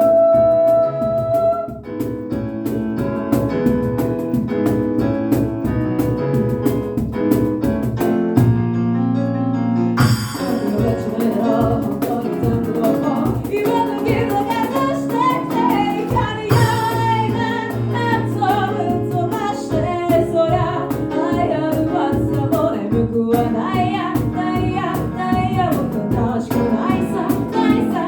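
An a cappella vocal group sings in close harmony, several voices with a female lead, over a steady beat that is typical of vocal percussion. The texture thins for a moment about eight seconds in, then the full group comes back in.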